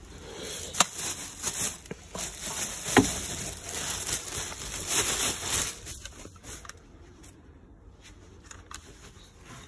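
Clear plastic bag crinkling and rustling as a new chainsaw is pulled out of its wrapping, with a couple of sharp clicks. It dies down about seven seconds in.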